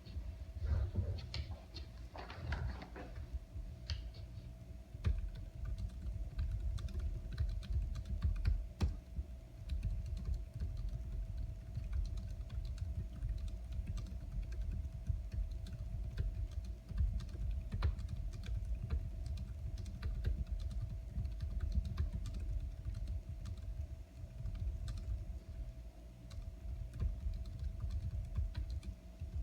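Continuous fast typing on a computer keyboard: a steady run of quick key clicks.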